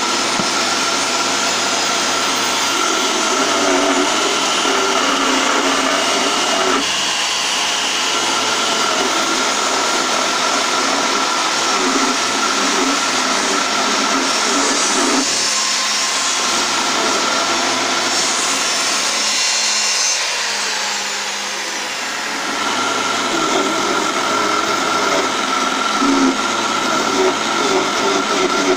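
Small benchtop mini wood lathe running with a steady high motor whine while a hand-held turning tool scrapes the spinning wooden blank. The whine drops away twice for a few seconds, then returns.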